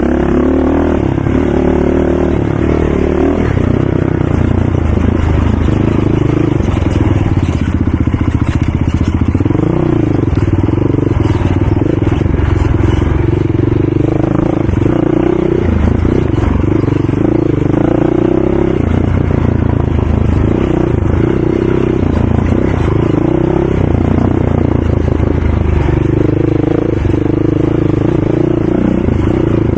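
ATV engine running hard, its pitch rising and falling over and over as it revs up and backs off.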